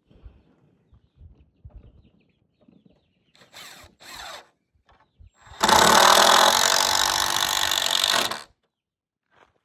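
Power drill: two short blips of the trigger, then one steady run of nearly three seconds that stops abruptly, as when driving a screw into wood.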